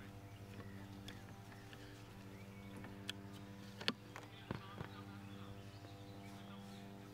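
A few light clicks and knocks from a strap and wooden seat back being fastened to a metal boat frame, over a steady low hum and faint bird chirps.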